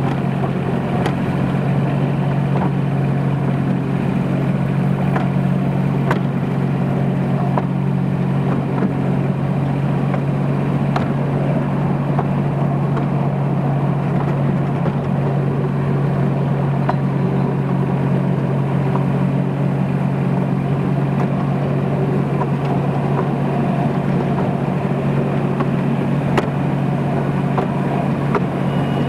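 Engine of a ride-on miniature railway locomotive running at a steady speed, a constant low drone heard from the passenger truck just behind it. A few light clicks come through at irregular moments.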